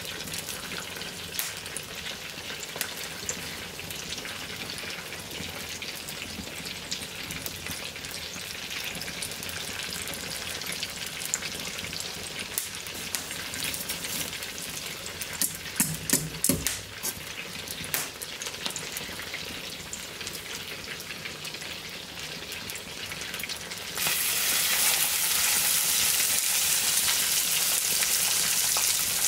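Chicken legs frying in hot lard in a cast-iron pan: a steady sizzle with fine crackling pops and a few knocks about halfway through. About 24 seconds in the sizzle suddenly turns much louder and hissier.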